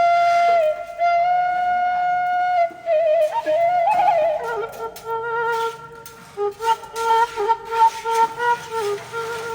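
Background music led by a flute: long held notes in a slow melody, turning into a trilling two-part line with scattered clicks from about halfway through.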